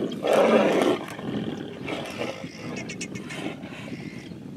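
Tigers fighting, giving a loud rough snarl in the first second, then quieter growls and rasps.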